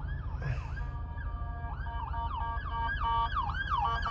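Several police sirens sounding at once, their rising-and-falling sweeps overlapping and growing quicker and louder in the second half, over a low steady rumble.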